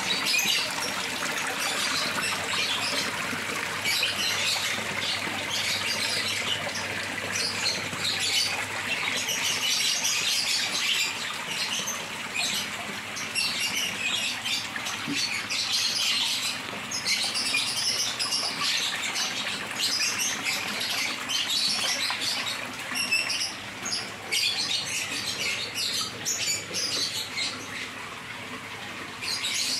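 Water trickling and splashing from a rock ledge into a koi tank, a busy run of many small, irregular splashes.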